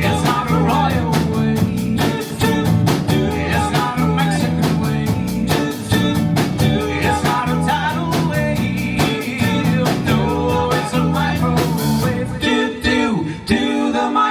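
A live rock band playing the instrumental close of a song, with drums, electric guitar and bass. The cymbals drop out about twelve seconds in, leaving a few last separate hits near the end.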